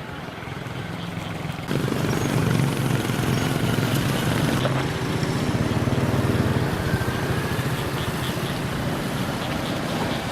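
An engine running steadily, with a low, even hum that gets suddenly louder about two seconds in.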